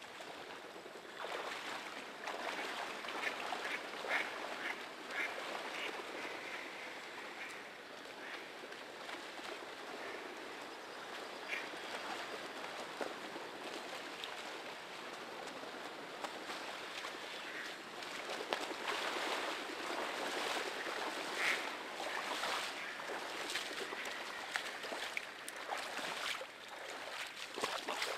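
Mallard ducks quacking in short, repeated calls over the slosh of water as someone wades through shallow flooded timber.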